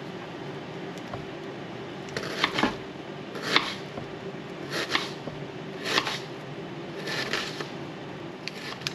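A fillet knife cutting garlic and onion on a plastic cutting board: about five separate cuts, a second or so apart, each knocking against the board.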